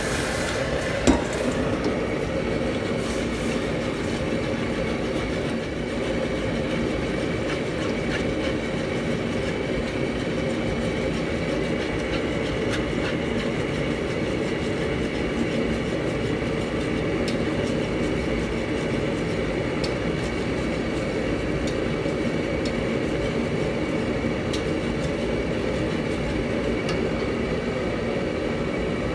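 Steady roar of a commercial gas wok range, with a metal wire whisk ticking faintly against the steel wok and a single clunk about a second in.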